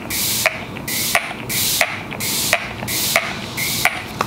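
Pump-mist bottle of makeup setting spray being pressed over and over: each press gives a sharp click and a short hiss of mist, about seven quick sprays at roughly one and a half a second.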